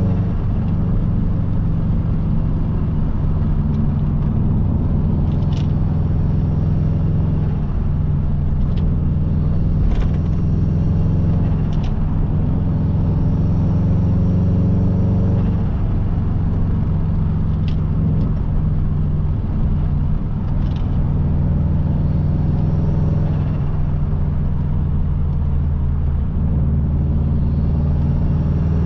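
Subaru Impreza WRX's turbocharged EJ20 flat-four engine running while driving, its pitch rising and falling gently, with a few brief sharp clicks.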